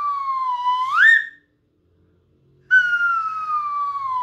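Slide whistle played with its plunger. A slow downward glide in pitch ends in a quick swoop up about a second in. After a short pause, the same slow falling glide starts again.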